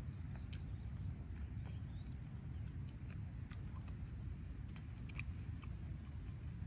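Faint eating sounds, a scatter of small irregular clicks and smacks as cooked fish is picked apart and chewed by hand, over a low steady rumble of outdoor background.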